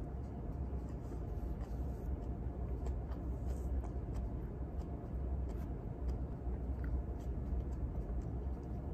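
Steady low room hum with scattered faint clicks from chopsticks and eating.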